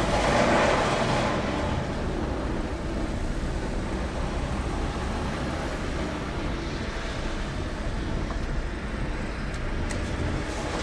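Mercedes-Benz Actros truck's diesel engine and road noise inside the cab as it drives and turns, a steady rumble that is louder for the first second or two.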